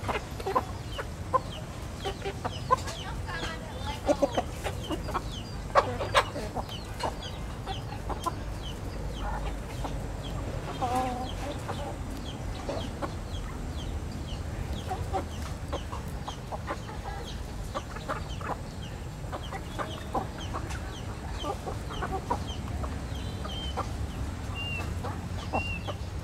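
A flock of chickens clucking as they forage, with several short sharp sounds in the first six seconds and a run of high thin chirps near the end.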